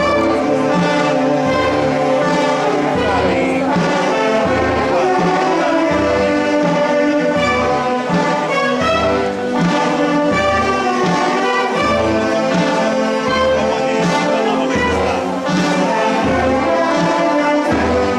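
Wind band of brass and clarinets playing slow music, with a low bass note about every second and a half.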